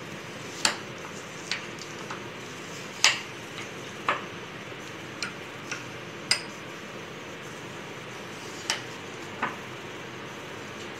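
A metal spoon clinking and scraping against glass and ceramic bowls while frozen ice cream is scooped out, about nine sharp irregular clinks, with a faint steady hiss behind.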